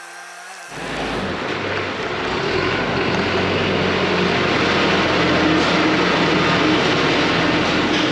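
A heavy vehicle engine running loudly and steadily, cutting in abruptly just under a second in.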